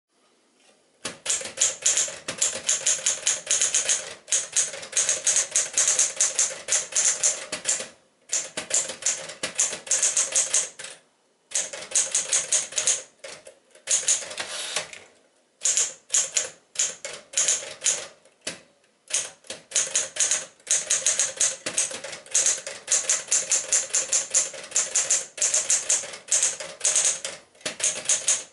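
A 1967 Smith-Corona Caravelle 10 typewriter, built on the Smith-Corona Sterling, being typed on. Its keys strike quickly, several a second, in runs of a few seconds broken by brief pauses.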